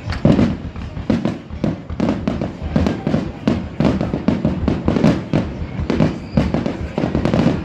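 Fireworks finale: aerial shells bursting in quick succession, several loud booms and cracks a second overlapping one another.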